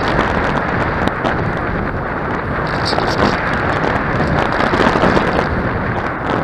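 Wind buffeting the microphone: a loud, steady rumble and rush.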